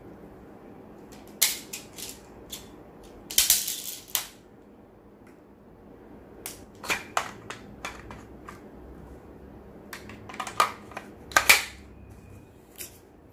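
Irregular sharp clicks and clacks of an airsoft gas-blowback rifle's metal magazine being handled and fitted to a GHK AKMS, with a short noisy burst about three and a half seconds in and a cluster of louder knocks near the end.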